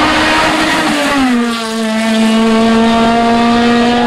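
A hill-climb race car's engine running at high revs. Its pitch drops about a second in, then holds steady.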